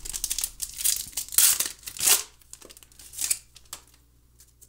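Foil wrapper of a trading-card pack being torn open, crinkling and tearing in bursts for about two seconds, then a few softer rustles as it is handled, dying away near the end.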